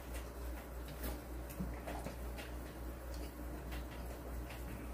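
Faint chewing and scattered light clicks of chopsticks and a plastic spoon against food containers, over a steady low hum.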